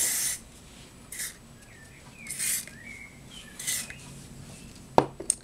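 Elnett aerosol hairspray hissing in several short sprays, with faint high squeaks between them. Two sharp clicks near the end.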